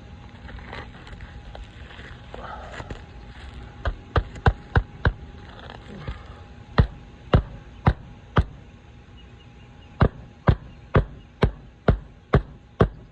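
Hammer driving roofing nails into asphalt shingles: runs of sharp strikes, about two to three a second, in three groups starting about four seconds in.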